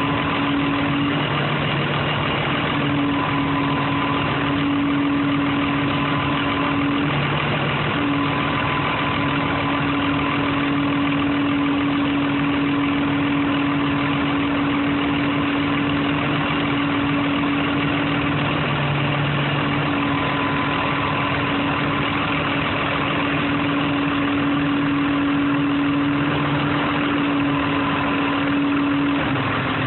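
Heavy-equipment diesel engine idling steadily: a continuous drone with a hum that drops out and returns every few seconds.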